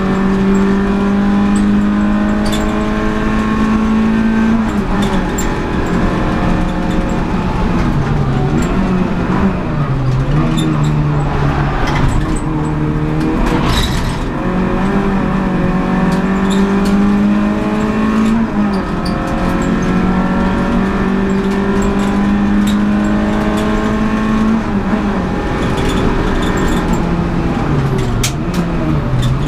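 Renault Clio Sport 182 race car's 2.0-litre four-cylinder engine heard from inside the cabin, running hard at high revs, its pitch falling and climbing again several times through the corners. A sharp knock about halfway through.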